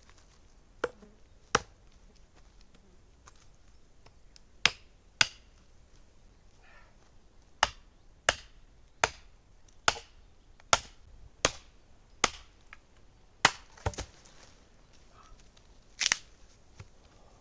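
A series of sharp knocks, about fifteen, like hard blows struck by hand with a tool. They are irregular at first, settle into an even run of about one every 0.7 s through the middle, and end with a few spaced strikes.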